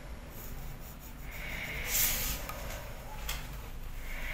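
Pencil scratching on paper in long strokes ruled along a plastic ruler: one stroke about a second in and another starting near the end, with a small tick in between.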